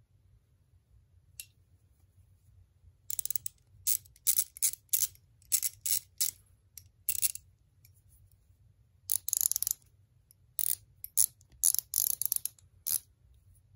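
Pawl clicking of small 1/4-inch drive hand ratchets, a Koken and a TONE, as their square drives are turned by finger. The clicks come in short quick runs, about a dozen of them, with a pause of over a second just past the middle.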